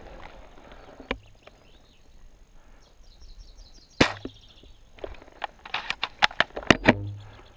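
Airsoft guns firing: a sharp single shot about a second in, a louder one at about four seconds, then a quick, irregular string of shots in the last few seconds.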